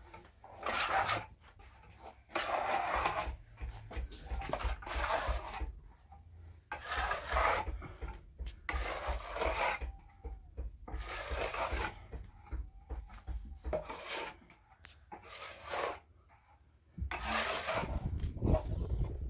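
Repeated rubbing strokes, each lasting about a second, with short pauses between them. A lower rumbling noise comes in near the end.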